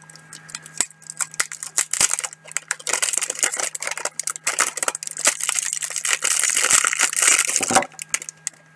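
Plastic packaging crinkling and rustling as a puzzle cube's box is opened: scattered crackles at first, then a dense, loud crackle from about three seconds in that stops shortly before the end.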